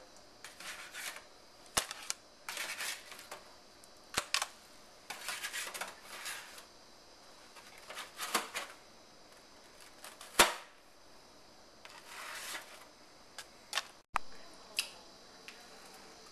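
Spatula scraping cookies off a metal baking sheet, with scattered sharp clicks and taps as they are set down on a plate. The sound is an irregular mix of short scrapes and single clicks.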